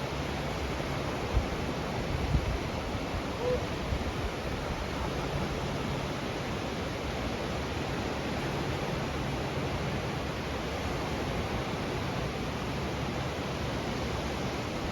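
Steady rushing noise of stormy weather, with a few brief low thumps in the first four seconds.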